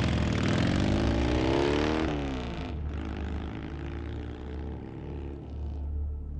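Motorcycle engine accelerating hard, its pitch climbing for about two seconds, then dropping abruptly at a gear change and running on quieter as it pulls away.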